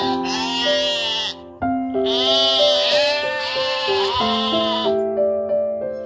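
Sheep bleating: long, quavering bleats in two spells, the second ending about five seconds in, over background music with sustained notes.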